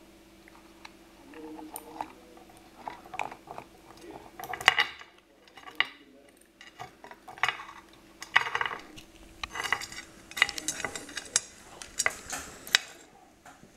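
Irregular scrapes and sharp clicks of a Caribbean hermit crab's shell and legs against a stone surface as it is held and turned by hand. They come in scattered bursts, the loudest about a third of the way in, and more closely bunched in the second half.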